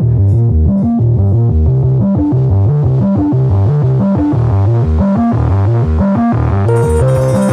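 Background music: a repeating bass line under synthesizer and plucked, keyboard-like notes, with a held high note and a brighter layer coming in near the end.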